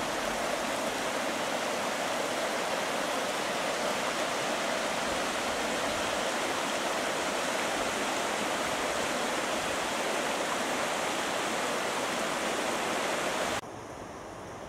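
Shallow river water rushing steadily over a stony riverbed, the Yubetsu River's riffles. Near the end it cuts off suddenly to a much fainter steady hiss.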